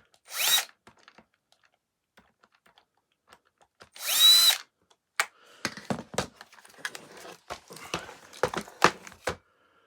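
Electric screwdriver running in two short spurts, a whine that rises as it spins up and then holds: it is backing out screws from the plastic floor-head housing. The spurts come just after the start and about four seconds in. After that comes a run of sharp clicks and knocks from plastic parts.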